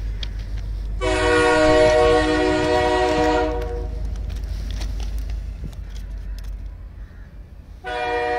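Train horn sounding twice over a steady low rumble: a long blast of about two and a half seconds starting about a second in, and a second blast starting just before the end.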